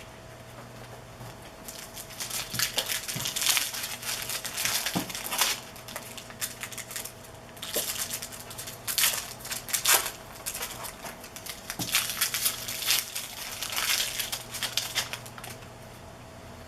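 Trading-card pack wrappers being torn open and crinkled, in irregular bursts of rustling, with cards handled between them. A faint steady electrical hum runs underneath.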